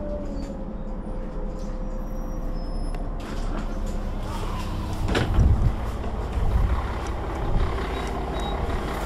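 Solaris Urbino 12 III city bus with a ZF automatic gearbox running at low speed: a steady engine rumble, with a faint whine that sinks slightly over the first few seconds. About five seconds in comes one loud, sharp thump, followed by two smaller thumps.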